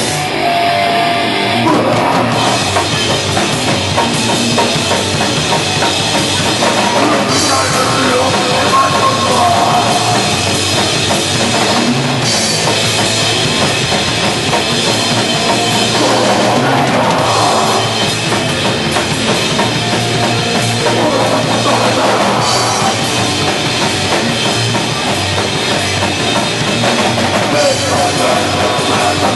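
Crust/hardcore punk band playing loud, with distorted guitars and a full drum kit. The band comes in fully about two seconds in and plays on without a break.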